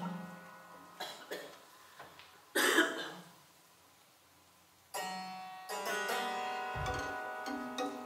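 Sparse improvised chamber music with live electronics: a few faint notes, a short noisy burst about three seconds in, and a near-quiet pause. From about five seconds in comes a cluster of ringing pitched notes, with a brief low thud near seven seconds.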